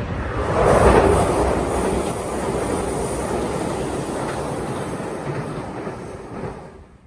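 JR Shikoku Series 2700 diesel railcar crossing a bridge: a loud rumble and clatter of wheels on the bridge. It swells to its loudest about a second in, holds steady, then fades away near the end.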